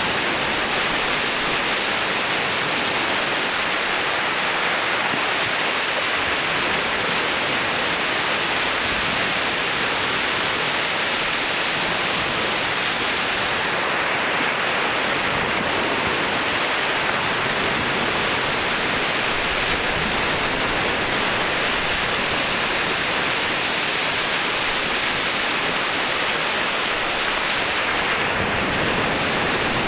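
Ocean surf breaking and washing up a sandy beach, a steady, unbroken noise of waves.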